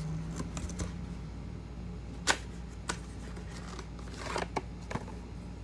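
Small cardboard product box being handled and opened: a few sharp clicks and taps, the loudest about two seconds in, and a short papery scraping rustle near the end, over a steady low hum.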